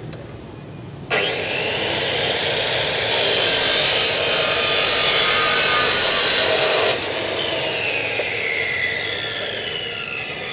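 Dekton DK355 abrasive cut-off saw switched on about a second in, its motor spinning up with a rising whine. Its wheel then cuts through a square steel tube for about four seconds, much louder. When it is released, the motor winds down with a falling whine.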